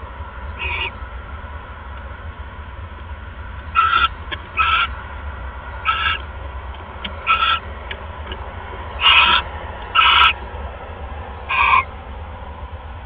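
Barn owl giving a series of eight short calls, each a fraction of a second long and spaced about a second apart, over a steady low hum.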